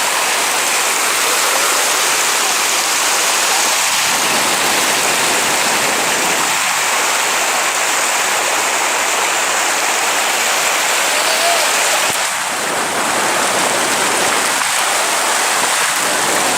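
Floodwater rushing: a loud, steady noise of fast-flowing water.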